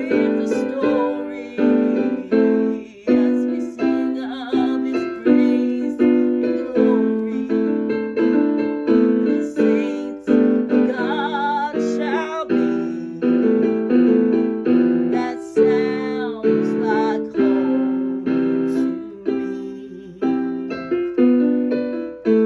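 Piano playing a song's accompaniment: chords struck about once a second, each left to ring and fade.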